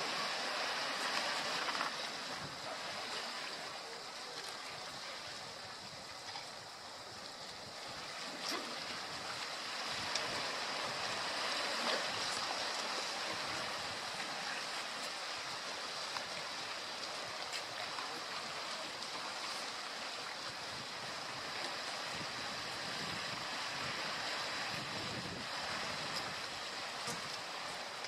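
Steady rush of sea surf washing against a rocky shore, with a brief lull about six seconds in.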